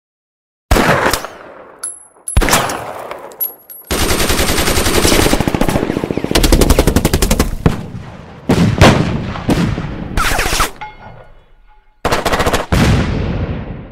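Gunfire: a couple of heavy single shots with echoing decays, then several seconds of rapid machine-gun fire and more short bursts, each starting and stopping abruptly.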